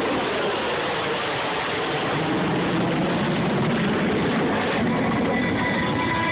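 Jet noise from an F-22 Raptor's two Pratt & Whitney F119 afterburning turbofans during a flying pass: a loud, dense rushing noise whose pitch slides as the aircraft moves past. About five seconds in, music from the public-address system begins underneath it.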